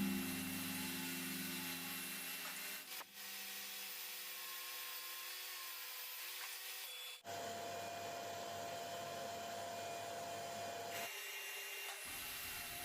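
Table saw running and ripping the rounded edge off a reclaimed bed-slat board, a steady noisy whir that jumps abruptly at cuts about three and seven seconds in.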